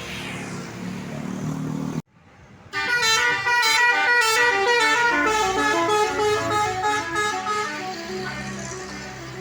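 Vehicle noise, cut off suddenly about two seconds in. Then a bus's Basuri telolet multi-tone horn plays a quick melody of stepping notes, loud at first and easing off near the end.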